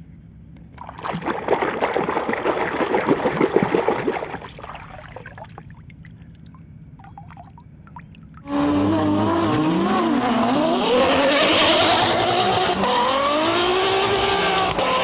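Water pouring or spraying for about three seconds. Then, from about two-thirds of the way in, a racing-car engine sound effect revving up and down, which starts and cuts off abruptly.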